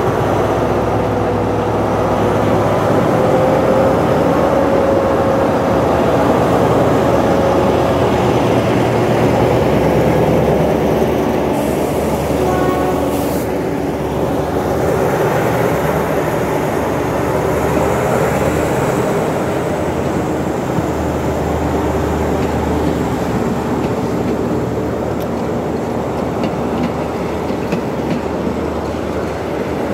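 Diesel locomotive No. 4224 hauling a passenger train away from a stop: its engine works steadily as it draws past, then the passenger coaches roll by with their wheels clattering over the rails. A brief higher tone sounds about halfway through.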